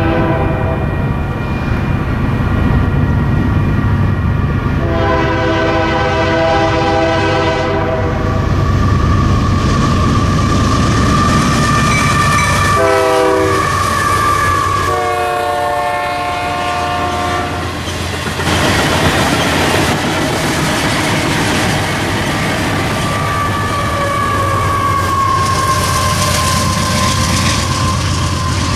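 Diesel freight locomotive air horn sounding four blasts, long, long, short, long, the standard grade-crossing signal, its pitch dropping as the locomotive passes. It is followed by the steady rumble and wheel clatter of freight cars rolling by.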